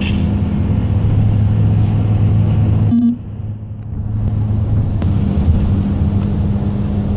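Car engine and road noise heard from inside the cabin of a moving vehicle: a steady drone that dips for about a second around three seconds in, then comes back.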